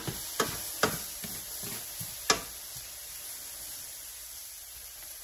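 Cabbage coleslaw mix sizzling faintly in a stainless steel skillet while metal tongs stir and lift it, clinking against the pan four times in the first two and a half seconds, the last clink the loudest.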